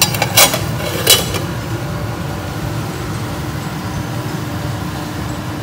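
A lid set on the pot of simmering tomato sauce with two short clinks about half a second and a second in, then the steady low rumble of the gas burner under the pot.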